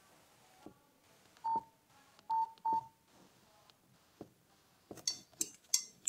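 Nokia 3720 classic keypad tones: three short beeps between about a second and a half and three seconds in, each with the click of a key press as the menus are navigated. Near the end comes a run of sharp clicks and handling noise from the phone.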